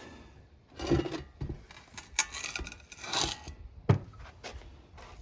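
Wood lathe parts being handled during bearing removal: several short scrapes and rubs, then a sharp knock about four seconds in.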